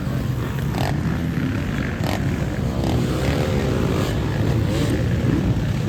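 Off-road motorcycle engines running on the sand course, the revs rising and falling.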